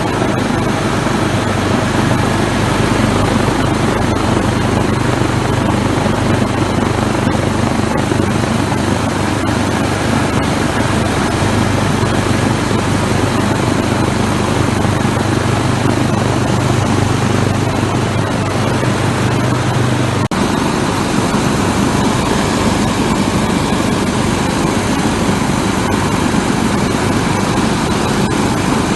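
20-micron vibration filter running: a loud, steady rushing noise over a low, steady machine hum. The hum stops about two-thirds of the way through while the rushing carries on.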